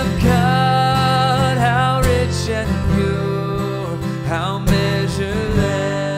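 A man singing a slow hymn into a microphone, accompanying himself on a strummed acoustic guitar.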